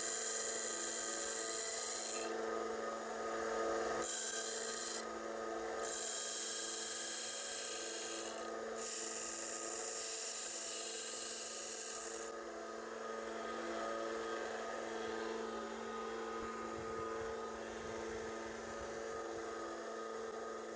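A powered grinder runs steadily while a steel kitchen-knife blade is pressed to the abrasive in about four hissing grinding passes, regrinding a broken tip. The grinding stops about twelve seconds in and the motor keeps running.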